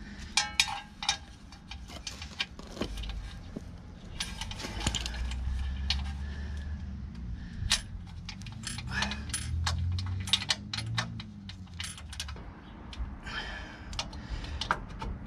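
Sharp metallic clicks and clinks of a drum brake shoe's hold-down pin and spring being worked into place by hand on the backing plate, at irregular moments.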